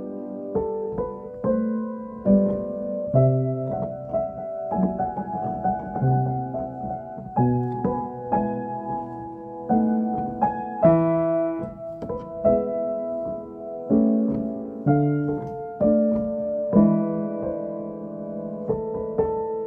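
Piano played solo: a slow piece with a bass note or chord struck about every second and a half under a higher melody, each note left to ring and fade.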